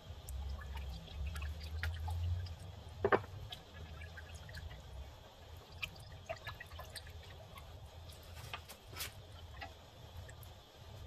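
Whisk stirring butter and cream for Alfredo sauce in a metal pot: wet sloshing with scattered small clicks and splashes, the sharpest about three seconds in, over a low hum.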